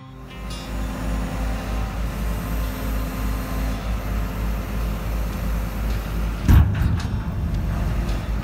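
Skip loader lorry's diesel engine running steadily while its hydraulic lift arms lower a steel skip on chains, with a loud thump about six and a half seconds in.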